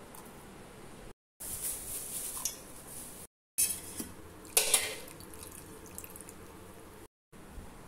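Water poured from a small steel tumbler into a steel mixer-grinder jar onto coarsely ground paste, with a sharp metal clink about four and a half seconds in. The sound is cut up by short edits that drop briefly to silence.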